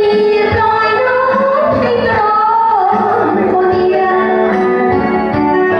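A woman singing into a microphone over recorded backing music with a steady beat, holding long notes.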